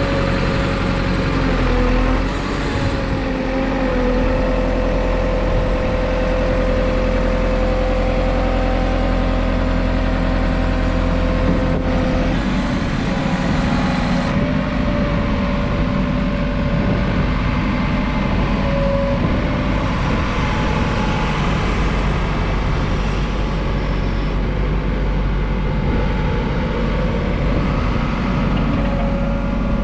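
JCB 4CX backhoe loader's diesel engine running steadily, with a steady whine over it for about the first half.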